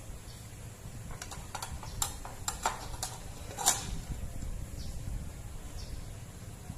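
A plate and watermelon slices being shifted on a steel tray: a run of light clicks and knocks, the loudest about three and a half seconds in, over a low steady background rumble.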